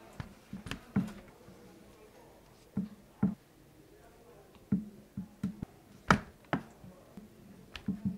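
Plastic serving spoon knocking and tapping as pieces of chicken adobo are set down on a banana-leaf-lined tray. About a dozen irregular knocks, the loudest a little after six seconds in.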